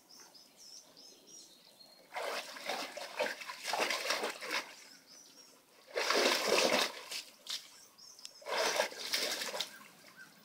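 Portuguese water dog splashing the water of a plastic kiddie pool with its paws, in three loud bouts: about two seconds in, around six seconds, and near the end.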